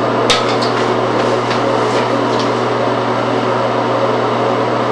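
Steady, loud hum with a hiss over it, unchanging throughout, and a short click about a third of a second in; no flute is playing.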